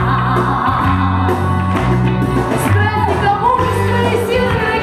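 A pop song performed live: a woman singing into a microphone over backing music with sustained bass notes.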